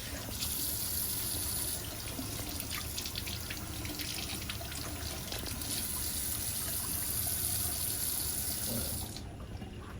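Bathroom faucet running into a sink, with a steady hiss of water and a few splashes, turned off about nine seconds in.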